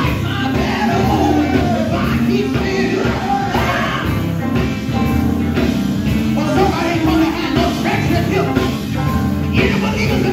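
Live gospel band playing, amplified: a male lead singer sings into a microphone over electric guitar and electric bass.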